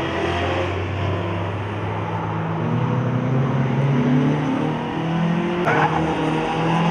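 Engines of several small hatchback race cars running on a circuit, their pitch rising and falling as they speed up and lift off around the track. A short sharp noise about five and a half seconds in.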